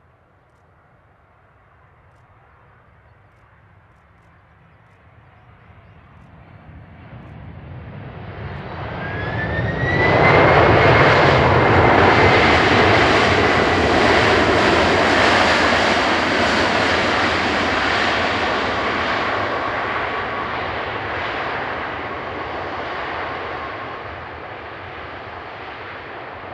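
Boeing 767-300ER landing: the roar of its twin turbofans (GE CF6-80C2 engines) builds as the jet rolls down the runway toward the camera. About nine seconds in, a whine rises and the noise suddenly jumps to a loud rush, the engines spooling up, typical of reverse thrust just after touchdown. The noise then slowly dies away as the aircraft decelerates.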